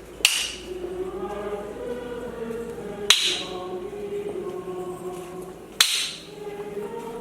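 Church choir singing a slow hymn during the procession of the Blessed Sacrament. Three sharp clinks cut through the singing, about two and a half seconds apart.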